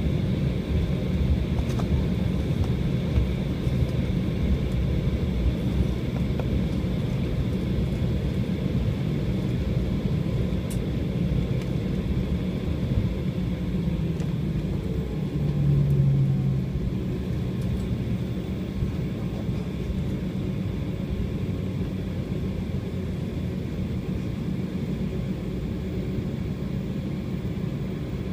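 Inside the cabin of an airliner taxiing after landing: a steady low rumble from the idling engines and the rolling wheels. A brief low hum rises and fades about halfway through.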